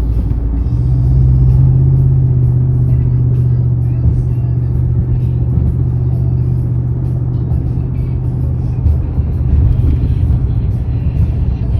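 Steady road noise and low engine drone heard inside a car cruising on a freeway, with a low hum that strengthens about a second in and holds.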